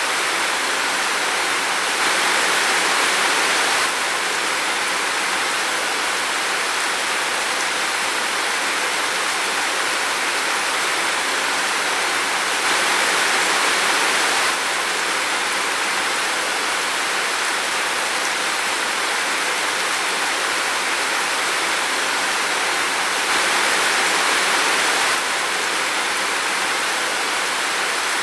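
Steady rain falling in a forest, an even hiss of rain on foliage, with brief slight swells in loudness three times.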